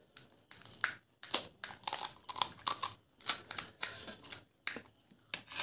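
Crisp, hollow pani puri shells cracking as fingers punch them open, with crunching as a mouthful is chewed: an irregular run of sharp crackles, several a second.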